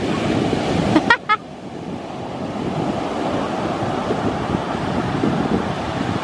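Atlantic surf breaking on the beach, a steady rush with wind buffeting the microphone. A short high-pitched cry sounds twice in quick succession about a second in.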